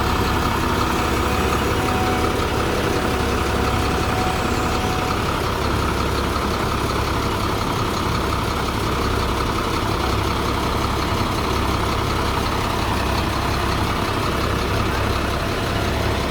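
Heavy diesel engine of construction machinery running steadily, with a constant low rumble.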